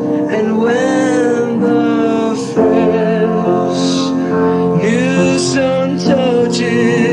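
Worship song music: a melody line with strong vibrato over sustained chords, with the phrase changing every couple of seconds.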